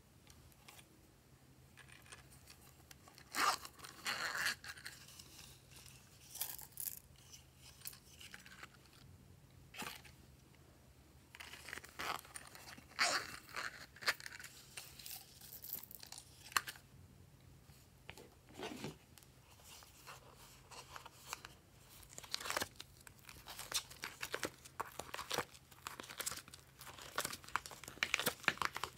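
Hands squishing, pinching and pulling soft modelling clay and slime, making crackling, crinkly tearing sounds in irregular short bursts with quiet gaps between.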